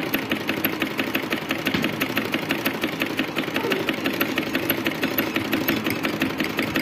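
Samara household sewing machine running steadily, its needle stitching a seam through cotton cloth with a fast, even clatter of stitches.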